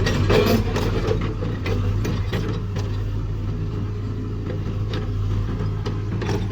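Hitachi UH025-3 excavator's diesel engine running steadily, with scattered clicks and knocks from the machine.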